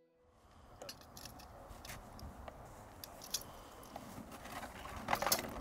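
Wind over open snow, rumbling on the microphone, with scattered small clicks and crunches and a louder cluster of crackles about five seconds in.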